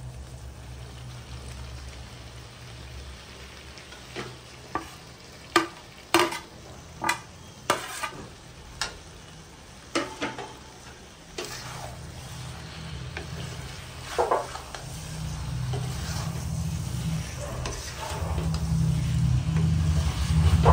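A spatula knocks and scrapes in a kadhai as jackfruit pieces are stirred into frying masala, with a sizzle underneath. The knocks come in a burst of about ten strokes in the first half, and a low rumble grows louder in the second half.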